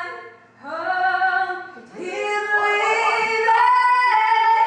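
A woman singing unaccompanied: a few sung phrases of sustained notes, the last note held for about a second near the end.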